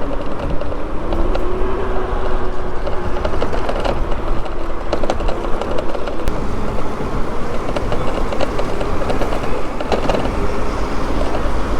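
Steady low rumble of street and vehicle noise, with a faint whine that rises slightly in pitch about a second in and then holds, and scattered clicks and rattles.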